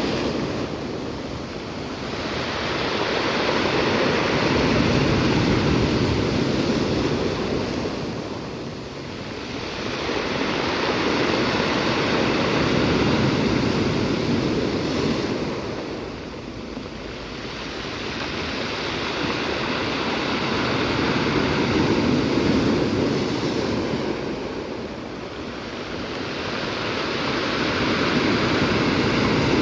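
Sea surf: waves breaking and washing up on the shore, the rush swelling and ebbing about every eight seconds.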